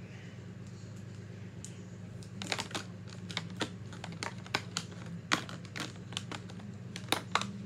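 Plastic felt-tip markers clicking and clattering against one another as they are handled and set down in a row. The quick irregular clicks start about two seconds in, with a few sharper clacks near the end.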